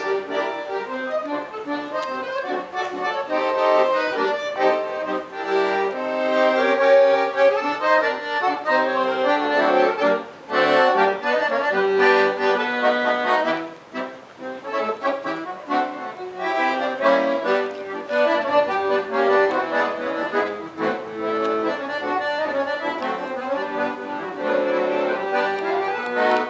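Instrumental music led by an accordion playing a busy run of notes in a traditional style, with brief breaks about ten and fourteen seconds in.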